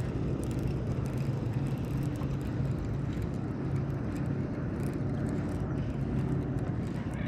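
A boat engine running at a steady low hum, with light ticking over it.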